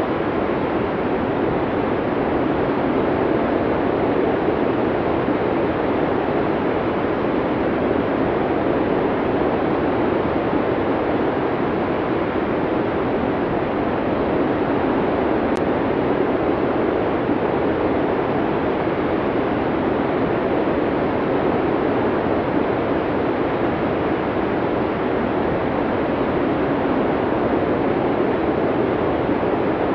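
Snowstorm wind blowing as a steady, even rushing noise with no gusts or breaks, deepest in tone in the lower middle.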